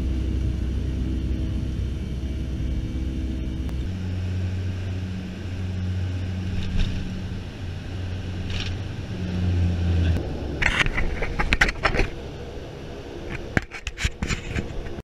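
Airliner engine and cabin noise heard from inside the plane on the ground: a steady low rumble, changing about four seconds in to a steadier low hum with a pulsing drone. It gives way to a scatter of clicks and knocks in the last few seconds.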